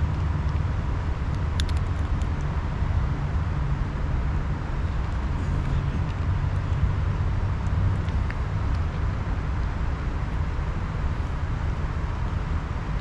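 Steady low outdoor rumble, with a few faint clicks about two seconds in.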